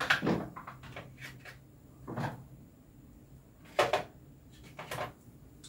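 Short, irregular knocks and clatters of hands working the energizer's wiring and plastic terminal block, five or so, with the loudest a sharp knock about four seconds in, over a faint steady low hum.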